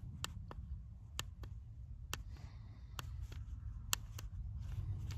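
Diesel night heater running with a steady low hum, with a scattered series of sharp clicks.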